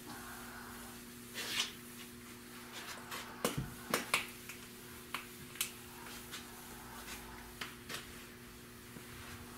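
Gloved hand wiping a cloth over a painted fiberglass truck cap: scattered short rustles and clicks, with a sharper knock about three and a half seconds in. A steady low hum runs underneath.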